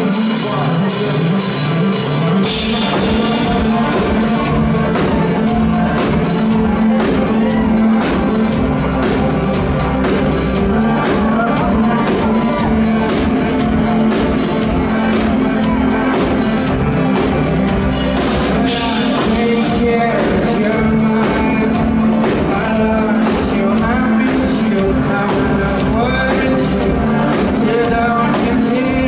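Live band playing a pop-rock song with male lead vocals over electric guitar, keyboards and drum kit; the bass and drums come in about two seconds in and the beat runs steadily from there.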